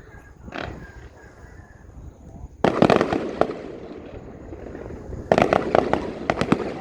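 Fireworks going off: a sudden loud burst of sharp cracks and crackling about two and a half seconds in, then a second cluster of cracks about five seconds in.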